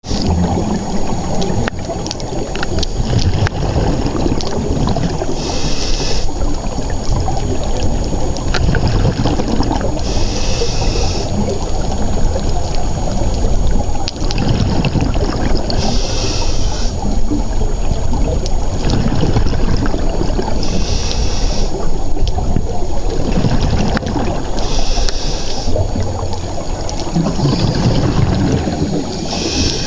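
Scuba diver breathing through a regulator underwater: a rush of exhaled bubbles about every five seconds over a steady underwater rumble.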